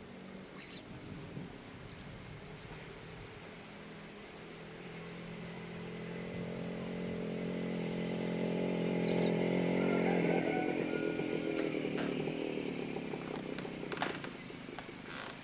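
A motor drones at a steady pitch, growing louder over several seconds, peaking about ten seconds in and then fading away.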